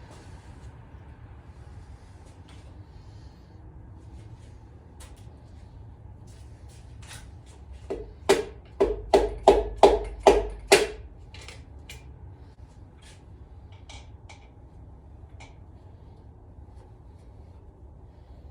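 Light clicks of metal engine parts and tools being handled, then a quick run of about eight sharp knocks, about three a second, a little under halfway through, like parts being tapped together during engine assembly.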